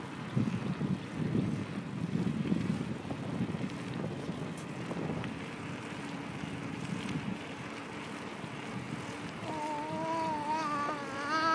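Wind buffeting a phone microphone on a moving bicycle, an uneven low rumble. Near the end a steady, slightly wavering hum comes in and grows louder.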